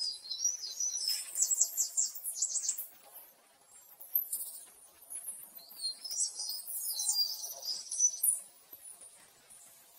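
Small birds chirping in high-pitched bursts, with short gliding calls and a fast trill about a second in.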